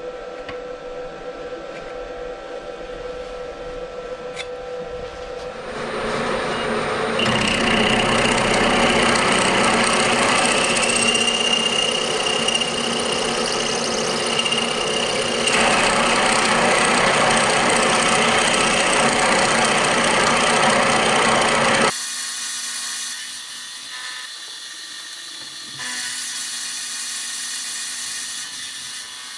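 Milling machine cutting a slot in metal flat bar with an end mill. It runs quieter at first, gets much louder about six seconds in with a high whine through the cut, then drops off abruptly about twenty-two seconds in.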